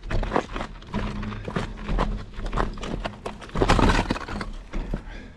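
Studded bike tyre and bike frame knocking and clattering over rough shoreline rocks and snow. It is an uneven run of jolts and rattles, loudest about two-thirds of the way through.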